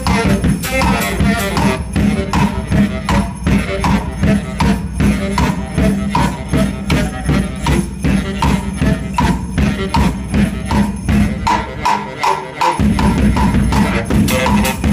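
Baritone saxophone played in a percussive, beat-driven 'robot' style over a sustained low drone, with a drum beating a fast, even rhythm along with it. The low drone cuts out for about a second near the end, then comes back.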